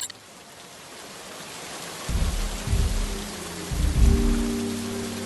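Steady rain hiss that swells in, with two heavy rolls of thunder about two seconds and three and a half seconds in, over low held musical notes.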